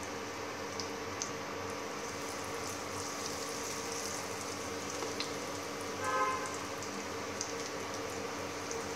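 Breaded cutlets deep-frying in a pan of hot oil: a steady sizzle with scattered small crackles. About six seconds in, a brief pitched sound rises over it.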